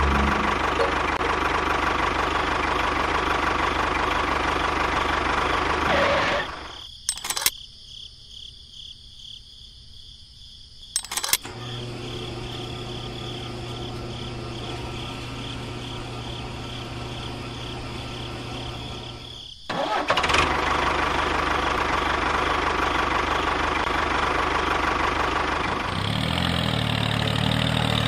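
Tractor engine running steadily. About six seconds in it cuts out, leaving two sharp clicks a few seconds apart and then a steady low hum. About twenty seconds in the engine runs again.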